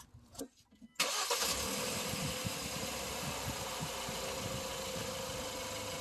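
Hyundai Santa Fe 2.0T's turbocharged four-cylinder engine running steadily with the front wheels off the ground, coming in suddenly about a second in. No creak is heard: without load on the suspension the creaking noise does not appear.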